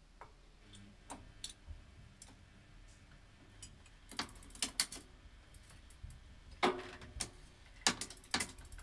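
Bicycle chain being fitted back onto the chainring by hand: scattered light metallic clicks and clinks, with a few sharper clacks from about four seconds in. Near the end the cranks turn and the rear hub's freewheel starts a fast, even ticking.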